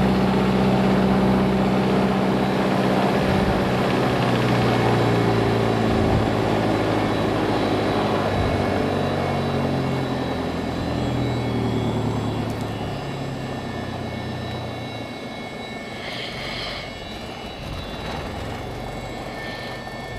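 Mooney M20J's fuel-injected Lycoming four-cylinder engine and propeller running after a hot start, heard from inside the cockpit. About halfway through it is throttled back, and the engine grows quieter as it settles toward an idle of about 750 RPM.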